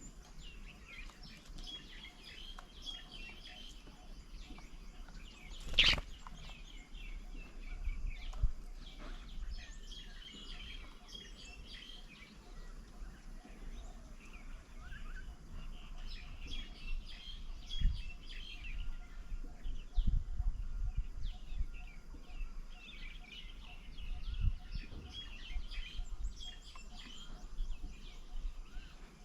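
Small birds chirping in bouts of rapid high calls that come and go every several seconds, with one sharp knock about six seconds in.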